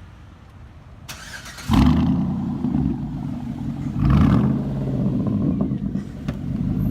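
An engine starts: a short cranking noise about a second in, it catches, surges briefly at about four seconds, then runs steadily.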